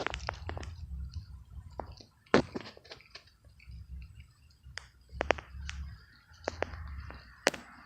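A cat chewing a mouse: irregular sharp crunches and clicks, the loudest about two and a half seconds in and again near the end, over a low rumble.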